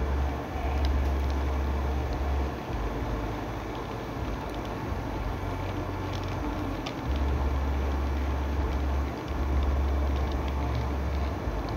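HO-scale model train running past on the layout track, its wheels rolling over the rails with scattered light clicks. A low rumble comes and goes in stretches of a couple of seconds.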